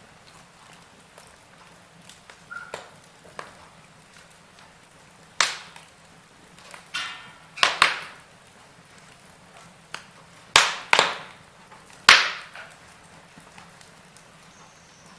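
Wood fire in a fireplace crackling: irregular sharp pops and snaps over a low steady hiss, with the loudest pops clustered in the second half.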